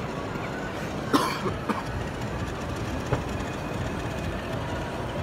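Steady low rumble of background noise, with a sharp knock about a second in and two fainter clicks later.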